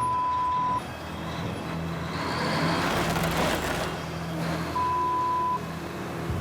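Heavy vehicle engine running steadily under load in low gear while hauling a heavy load up a steep, muddy slope. Two flat, high beeps cut in, one at the start and one nearly five seconds in, each under a second long: censor bleeps over swearing.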